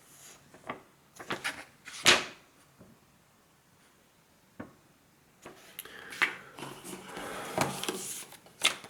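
Cardboard box and packaging being handled: a few knocks and scrapes in the first two seconds, a single tap a little after four seconds, then a stretch of rustling and shuffling of the packed items.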